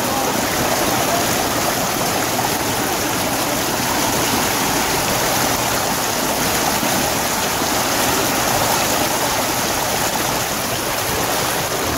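Steady rush of water running down water-park slides.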